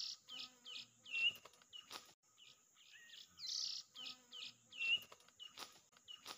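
Bird calls played in a loop as a trapping lure: the same run of short chirps and whistles repeats about every three and a half seconds. A few sharp clicks cut through about two seconds in and near the end.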